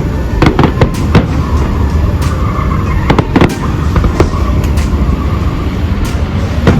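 Fireworks display: a rapid string of sharp bangs and cracks from bursting shells, clustered about half a second in and again around three seconds in, over a continuous low rumble.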